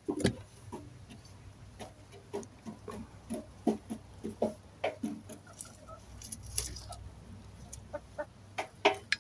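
Domestic hens clucking: a string of short, irregular clucks.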